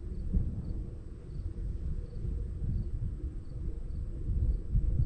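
Wind buffeting the microphone in a fluctuating low rumble, with a faint high chirp repeating steadily about every two-thirds of a second.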